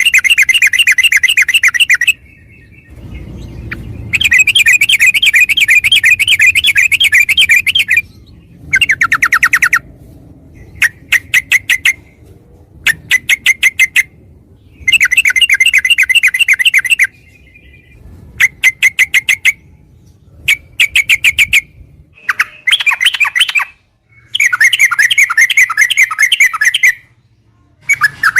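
Yellow-vented bulbul (trucukan) singing in long, rapid rolling trills of a few seconds each, alternating with shorter runs of quick separate chattering notes, with brief pauses between.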